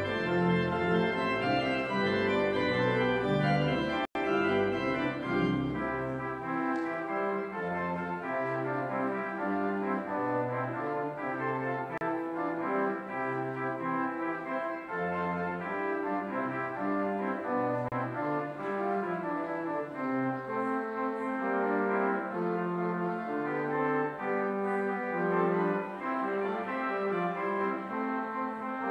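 Church organ playing the postlude, sustained chords moving along, with deep bass pedal notes that drop out about six seconds in. There is a split-second dropout in the sound about four seconds in.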